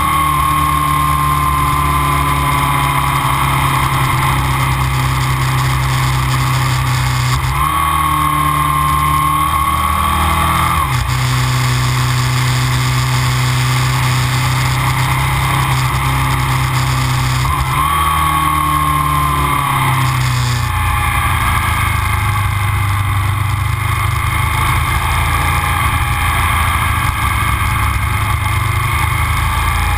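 Aprilia RSV 1000 V-twin running through Arrow aftermarket silencers under way. The engine note holds steady, then rises and falls with the throttle about a third of the way in and again about two-thirds of the way in.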